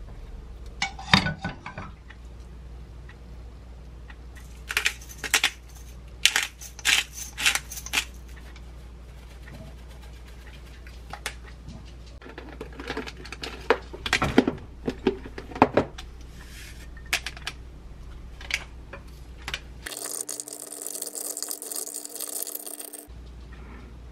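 Wooden spoon knocking and scraping against a ceramic bowl and a pan as kimchi nabe is spooned out, in scattered clicks and clatters. A short steady hiss lasts about three seconds near the end.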